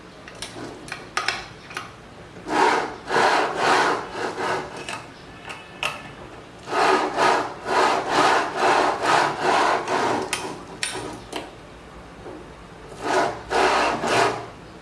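Rhythmic back-and-forth rubbing or scraping by hand, in three runs of quick strokes about three a second, with pauses between them.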